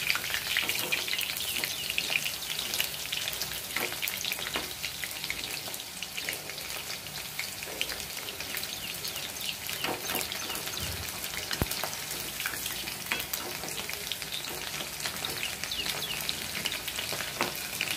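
Cornflour-coated chicken pieces deep-frying in hot oil in a kadhai: a steady crackling sizzle, while a slotted spoon stirs and turns the pieces in the pan.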